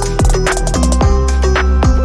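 Electronic music: a drum-and-bass-style beat with falling kick-drum hits, heavy sustained bass and synth tones.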